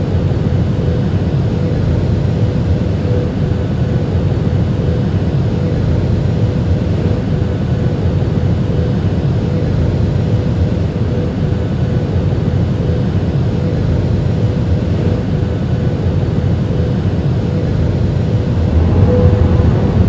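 Airliner cabin noise in cruise: a steady low roar of engines and airflow, with a faint steady hum above it.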